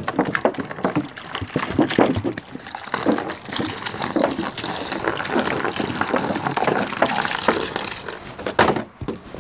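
Water gushing and splashing as a stream of it is poured into a shallow plastic tub; the pouring stops near the end.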